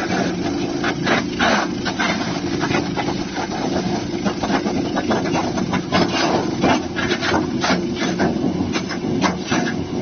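JADE CS-1200 wood chipper's small petrol engine running steadily under load while branches are fed in, with irregular sharp cracks and snaps as the blades chop the wood into chips.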